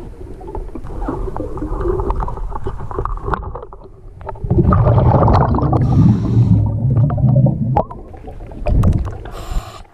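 Muffled water noise with low rumbling and scattered small knocks, loudest from about four and a half seconds in to nearly eight seconds.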